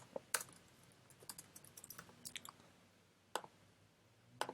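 Irregular clicks of typing on a computer keyboard, a few keystrokes at a time, with single louder clicks just after the start and about three-quarters of the way through.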